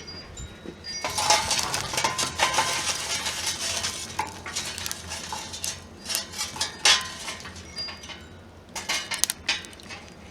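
Lumps of mesquite lump charcoal clinking and clattering as they are tipped and piled into the corner of a smoker's firebox. The clatter is densest about a second in and comes in smaller rattles after that.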